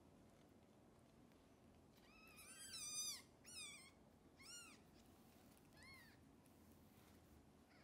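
Newborn kitten mewing: four high-pitched mews, the first and longest about two seconds in, then three shorter, fainter ones about a second apart.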